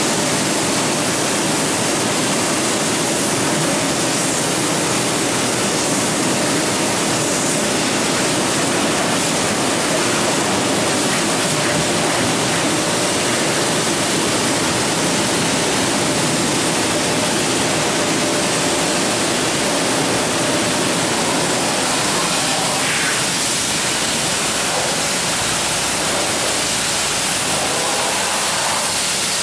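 High-pressure water jet from a car-wash spray lance blasting onto a soaped car's body, wheel and windows: a steady hiss of spray and splashing water.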